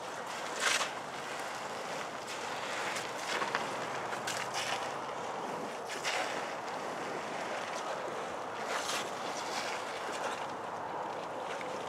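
Steady rushing wind noise, with a handful of short hissing bursts scattered through it.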